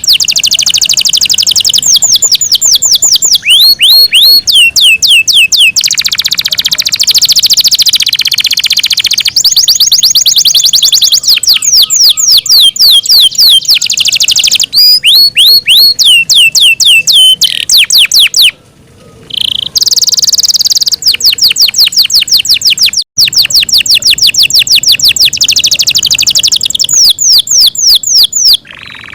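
Yorkshire canary singing loudly: long trilled phrases of rapid, evenly repeated falling notes, with a brief pause about two-thirds of the way through.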